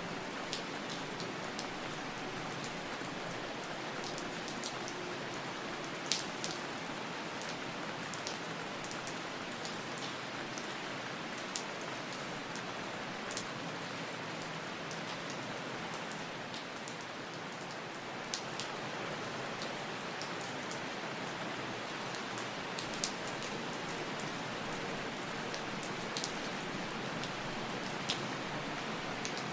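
Steady rain falling, an even hiss with scattered sharper drops and drips striking a surface now and then.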